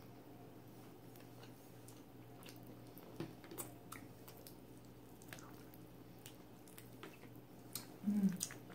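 Close-miked chewing of rotisserie chicken: soft, wet mouth sounds and small clicks, with a louder brief mouth sound about eight seconds in.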